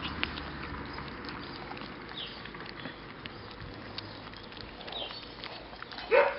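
Labrador retriever puppies eating soft food from an enamel bowl: scattered small licking, chewing and clicking sounds, with one short loud sound near the end.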